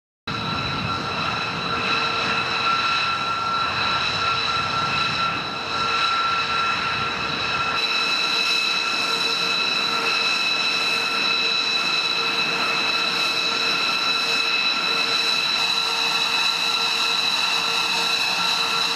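Jet engines running with a steady multi-tone whine over a rushing noise. A low rumble under it drops away about eight seconds in.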